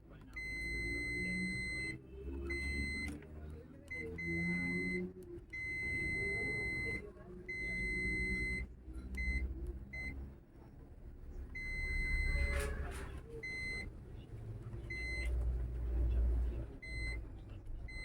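Electronic beeper sounding a steady high tone in irregular beeps, some very short and some up to about two seconds long, starting and stopping repeatedly, typical of a multimeter's continuity buzzer as the probes touch and leave a circuit. A low murmur runs underneath.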